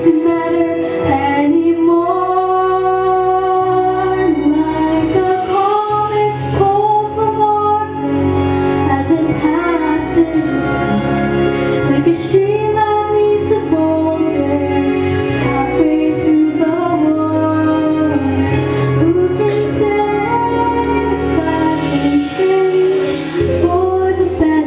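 A woman singing a slow solo melody over an instrumental accompaniment, holding long notes with vibrato above steady bass notes.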